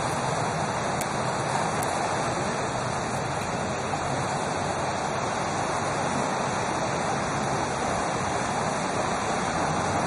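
Fast mountain river rushing steadily over rocky rapids.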